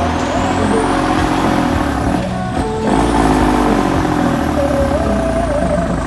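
Modified Kubota tractor's diesel engine running under load and revving, its pitch falling away and then rising again about halfway through.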